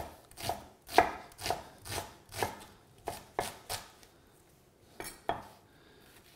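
Chef's knife dicing an onion on a wooden chopping board: the blade knocks on the board about two times a second, pauses about four seconds in, then knocks twice more.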